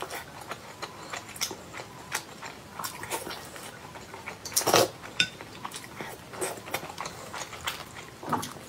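Close-miked eating sounds of a person chewing a pan-fried Spanish mackerel dumpling: a steady run of small wet mouth clicks and smacks, with one louder sharp smack about five seconds in.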